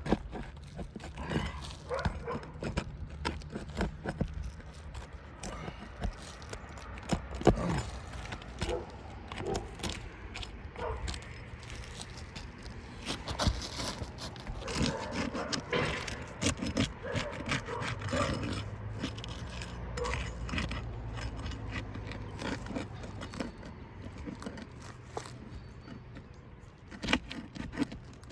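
Asphalt roof shingles being pried up and worked loose during a repair test: irregular scraping, rustling and clicking, with no steady rhythm.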